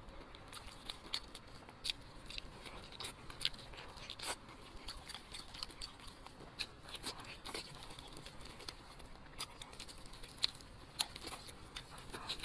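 Close-up eating sounds: meat on the bone being pulled apart by hand and chewed, with irregular short wet smacks and clicks.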